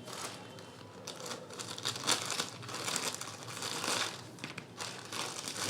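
Irregular crinkling and rustling from handling the new replacement headphone earpads.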